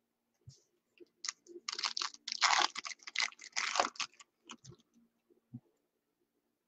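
Trading cards and their packaging being handled: a run of clicks, taps and rustles, thickest and loudest about two to four seconds in.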